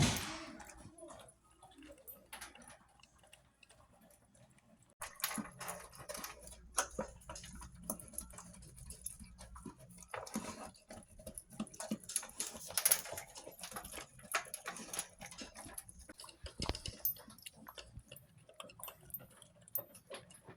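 Dogs eating from their food bowls: irregular crunching, licking and clicks of bowls being nudged. The sound starts about five seconds in and continues in a dense, uneven patter.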